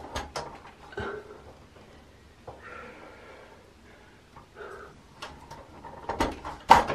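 Scattered clicks and knocks of a window blind's headrail being pushed up into its mounting brackets, ending in a quick run of louder clicks near the end.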